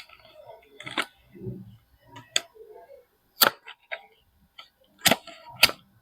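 Soap packaging being handled and opened: an irregular series of sharp clicks and crackling snaps, the loudest about three and a half and five seconds in, with a soft dull thud between.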